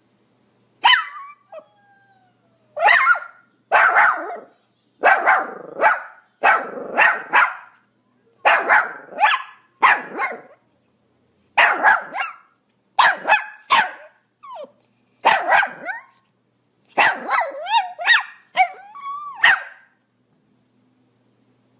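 Pomeranian barking: short, sharp barks in quick runs of two or three, some with a bending pitch like yips toward the end.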